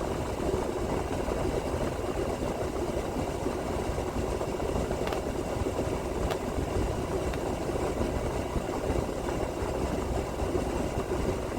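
Heavy truck's diesel engine idling with a steady hum, with a couple of faint clicks about midway.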